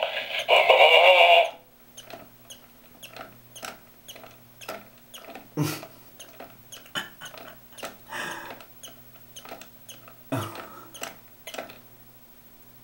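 Novelty race-car-driver figure toy: the electronic singing from its small speaker cuts off about a second and a half in, followed by irregular faint clicks and ticks over a faint hum from its mechanism, which stop near the end.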